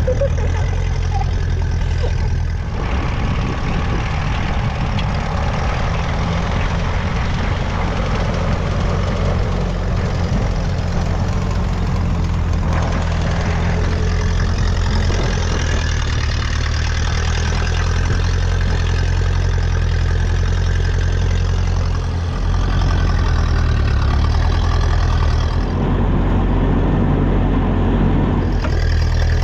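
Classic Massey Ferguson tractor engine running steadily.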